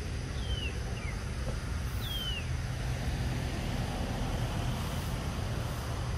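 Outdoor ambience: a steady low rumble throughout, with three short, high whistled calls falling in pitch in the first half.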